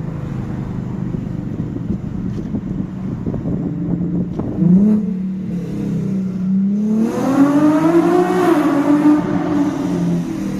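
Infiniti G37S's 3.7-litre V6, fitted with full bolt-on modifications, idling through its exhaust. It gets a short throttle blip about four and a half seconds in, then a longer rev about seven seconds in that climbs and falls back to idle.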